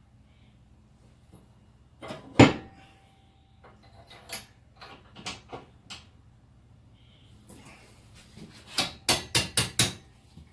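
Metal-on-metal clanks and knocks as a new steel spring is fitted into a blacksmith's post vise: one loud clank about two seconds in, a few lighter clinks after it, then a quick run of about seven sharp knocks near the end.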